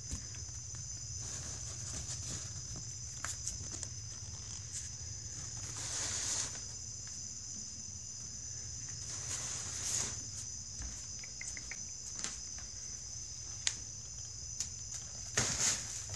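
Collapsible nylon cat tunnel rustling and crinkling in short bursts as a cat plays in and against it, three times, with a few light clicks and taps in between. A steady high-pitched whine and a low hum run underneath.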